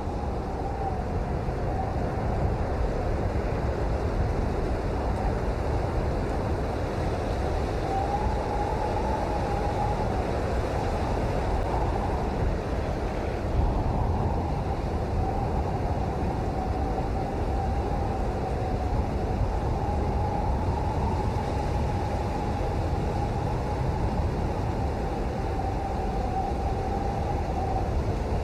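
Steady, continuous rain noise, heaviest in the low end, with a faint tone that wavers slowly in pitch running through it.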